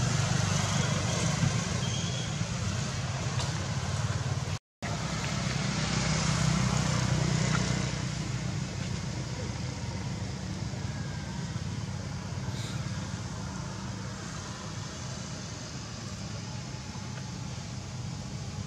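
Steady low rumble of road traffic and outdoor background noise. It drops out for a split second about five seconds in and eases a little after about eight seconds.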